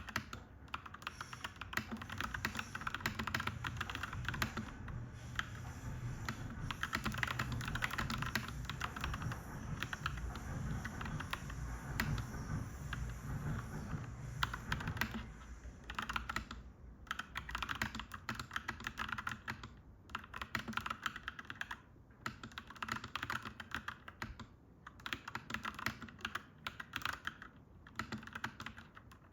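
Clacky mechanical keyboard being typed on in steady, rapid runs of keystrokes, broken by short pauses in the second half. A low rumble sits under the typing through the first half.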